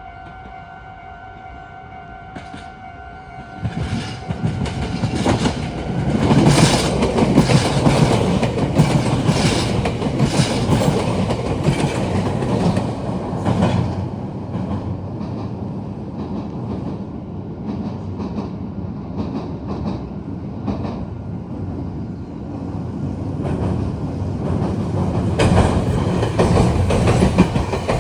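A level crossing's warning bell rings as a steady alarm tone, which stops a few seconds in. An electric train then passes close by with a loud rumble, its wheels clattering over the rail joints and junction points. The clatter eases past the middle and grows loud again near the end.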